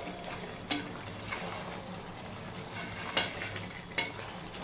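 Chicken curry masala sizzling as it is fried in an aluminium pressure cooker pot, stirred with a wooden spatula. The spices are being fried (bhuna) with the chicken and tomatoes. A few sharp knocks and scrapes of the spatula against the pot come about a second in, about three seconds in and near the end.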